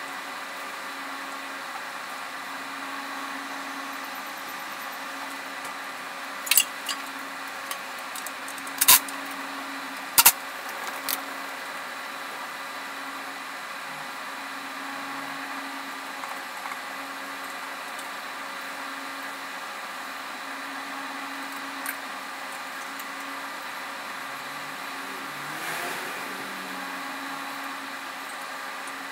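A steady machine hum, broken by a few sharp metallic clicks and knocks. The loudest two come about nine and ten seconds in: hand tools striking bolts and brackets under the van.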